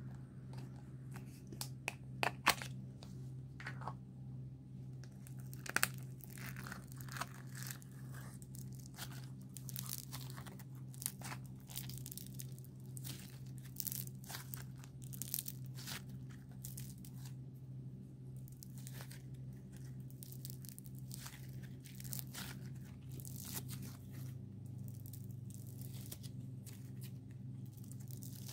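Slime being kneaded and stretched by hand, giving off irregular crackling, popping and squelching sounds, over a steady low hum.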